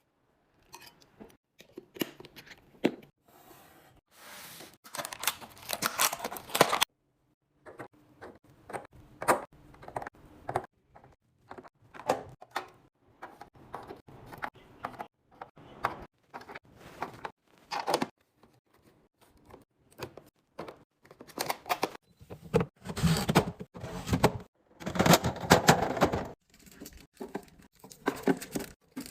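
Plastic containers, lids and food packaging being handled and set down while a fridge is restocked: a run of clicks, taps and knocks, with two longer stretches of rustling noise.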